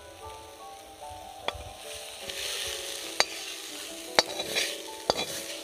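A metal spatula scraping fried leaves out of a steel kadai onto a stone grinding slab, with a rustling, scratchy scrape and four sharp metallic clinks as it knocks against the pan.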